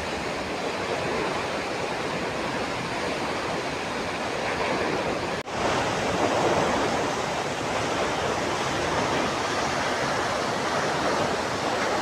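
Tall waterfall, about 150 m high, pouring onto rocks: a steady, even rush of falling water. It drops out for an instant about five and a half seconds in, then comes back a little louder.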